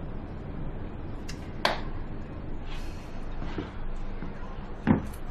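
Two sharp knocks about three seconds apart, the second deeper and louder, over a low steady background rumble.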